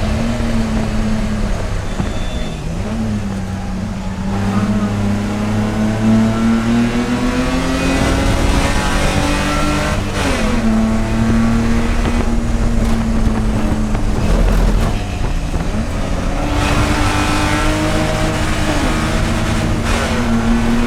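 Race car engine running hard, its pitch climbing steadily under acceleration and dropping sharply at a gear change about ten seconds in. The pitch dips and recovers with further lifts and shifts near the start and in the last few seconds.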